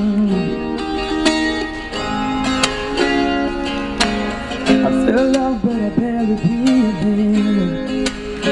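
Acoustic guitar strummed, with a man singing wordless runs into a microphone through a small amplifier; the sung line slides and wavers around sustained notes, strongest near the start and again past the middle.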